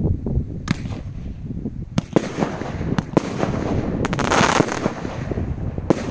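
A 37-shot firework barrage cake firing: a string of sharp bangs from shells launching and bursting, with a dense run of rapid pops about four seconds in.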